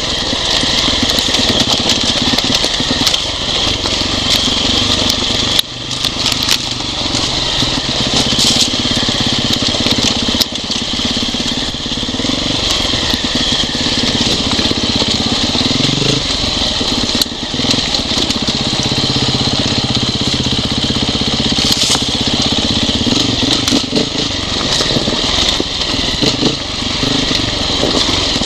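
Off-road dirt bike engine running as the bike rides a rough, rocky trail, its pitch rising and falling with the throttle, with scattered knocks and clatter.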